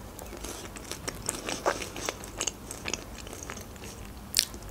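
Close-miked mouth sounds of chewing a bite of a crisp fried pastry pie: scattered small crunches and crackles of the crust, with one sharper crunch near the end.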